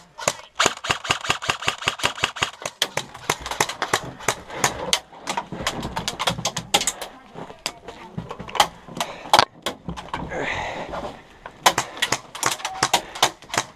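Airsoft guns firing: rapid strings of sharp snapping shots, about eight a second, broken by single shots.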